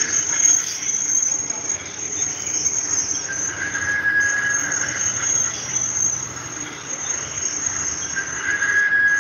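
Insects chirring steadily at a high pitch, with a lower tone about a second long coming in twice.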